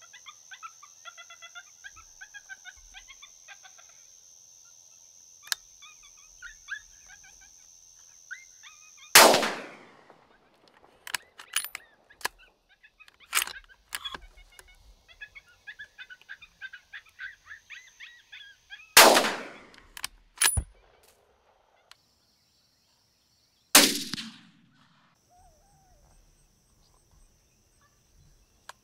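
Three loud gunshots, the first about nine seconds in, then two more about ten and five seconds later, each trailing off in a long echo. Short, high chirping calls carry on between them.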